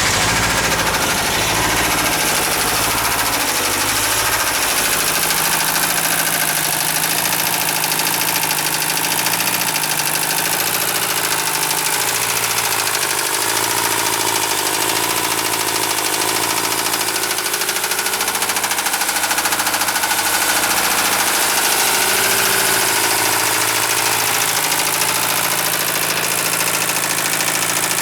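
1973 Mercedes-Benz 220D's four-cylinder diesel engine idling steadily with a knock, the rod knock of a worn connecting-rod bearing.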